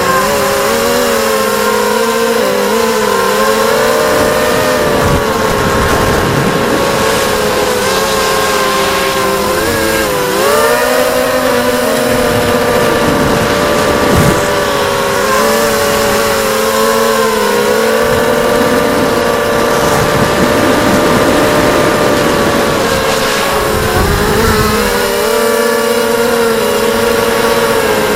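ZMR250 FPV quadcopter's four brushless motors and propellers whining in flight, the pitch dipping and rising again and again with throttle changes.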